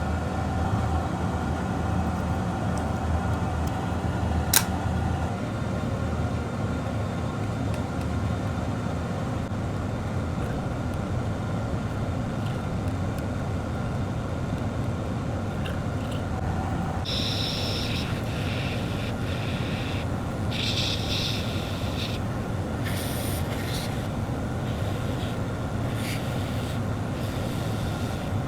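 Steady blowing rush of airflow at a microsoldering bench during reballing, with one sharp click about four and a half seconds in and on-and-off higher hissing from about seventeen seconds on.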